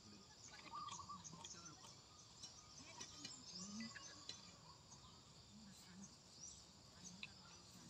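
Near silence: faint outdoor ambience of insects and birds chirping high up, with a few soft ticks.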